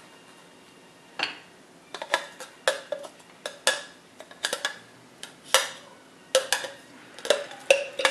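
Metal utensil knocking and scraping against the inside of a glass blender jar, clearing out blended ginger and garlic paste. About a dozen irregular clinks, some with a short ring, start about a second in.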